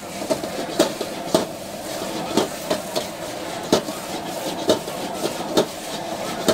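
Metal ladle clanking and scraping against a wok while stir-frying noodles, sharp irregular strikes about twice a second over a steady hiss of frying.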